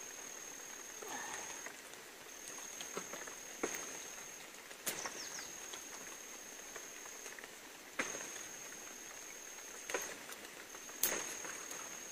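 An insect trilling in a steady high tone, in stretches of one to two seconds with short breaks, over a quiet outdoor background. Several sharp clicks or snaps stand out, the loudest about eleven seconds in.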